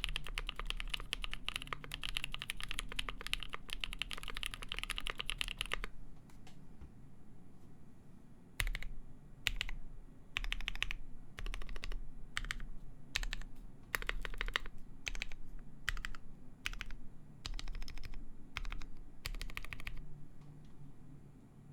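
Polaris mechanical keyboard with lubed NK Cream linear switches on a full polycarbonate plate and GMK keycaps, typed on fast and continuously for about six seconds. After a short pause come slower, separate short runs of keystrokes, stopping shortly before the end.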